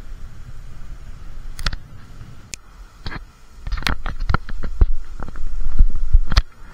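A low rumble with a run of irregular knocks and clicks, loudest in the second half and stopping abruptly near the end.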